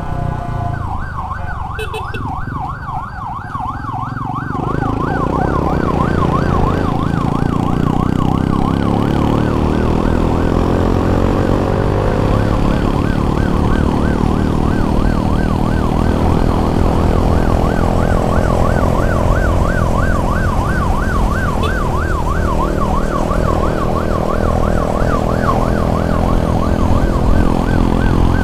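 Ambulance siren in a fast yelp, its pitch sweeping up and down several times a second, switching into the yelp about a second in. Under it runs a steady vehicle and road rumble that grows louder about four to five seconds in.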